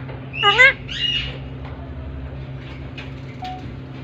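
Alexandrine parakeet calling: a short pitched squawk that dips and rises about half a second in, followed by a rougher, harsher call just after a second in.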